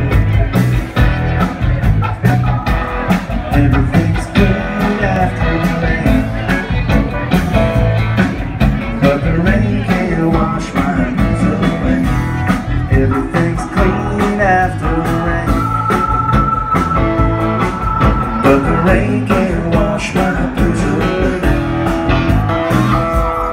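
Live rock band playing: drum kit, bass guitar and keyboards, heard from the audience. A long high note is held for a few seconds about two-thirds of the way through.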